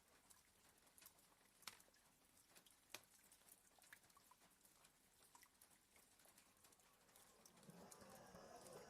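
Very faint, sparse raindrops tapping on a window, with two sharper ticks about two and three seconds in. Near the end the soft, slow breath of a sleeping border collie swells in.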